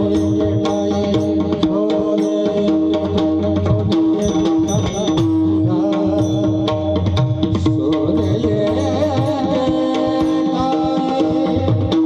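Devotional music led by mridang (pakhawaj) drumming, its low strokes repeating in a steady rhythm under a held drone note and a wavering melody line.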